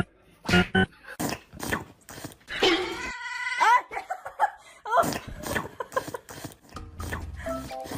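A pet animal's high, whining cries: several short calls that glide up and down in pitch, bunched in the middle.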